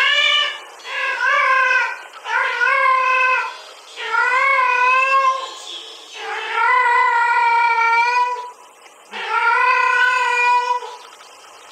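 A female cat in heat giving her mating call, six drawn-out yowls one after another with short pauses between them. It is a recording played back, not the sleeping tomcat.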